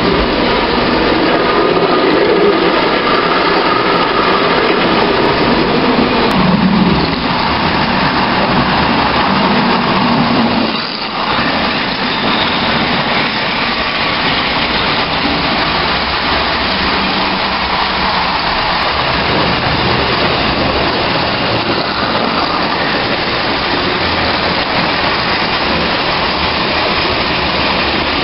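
Marx tinplate Commodore Vanderbilt toy trains running on three-rail tinplate track: a steady metallic clatter of wheels and mechanism, with a brief drop about a third of the way in.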